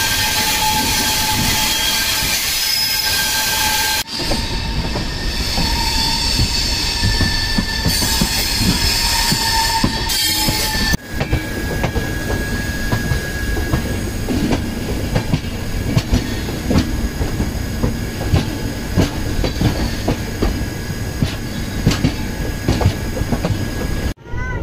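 A moving express train's wheels running on the rails. In the first few seconds there are steady high squealing tones. After cuts at about four and eleven seconds, rapid clattering clicks of the wheels over the track run over a steady rumble.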